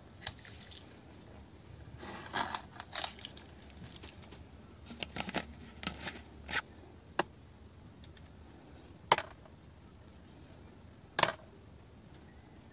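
Small metal gears and plastic parts of a Bosch GSR 12-2 cordless screwdriver's planetary gearbox being handled and taken apart: scattered light clicks and knocks, bunched in two spells, then two sharper single clicks near the end.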